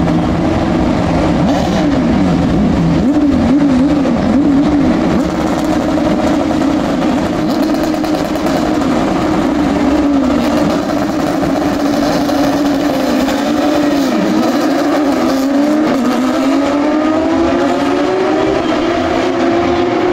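A field of Porsche 911 GT3 Cup race cars pulling away on a formation lap, many flat-six engines running at low revs together with their pitches wavering up and down. Over the last few seconds several engine notes rise as the cars accelerate.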